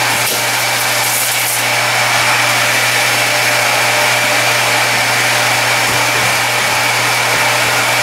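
Vacuum cleaner running steadily to suck dust and deposits out of a bathroom exhaust fan housing, with a high whine over its rushing air.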